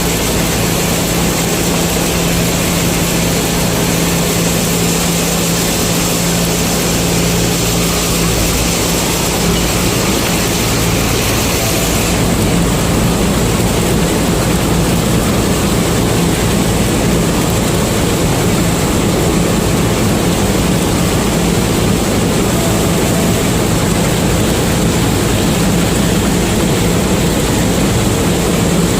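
Combine harvester's diesel engine running loud and steady with a constant drone; the higher hiss softens about twelve seconds in.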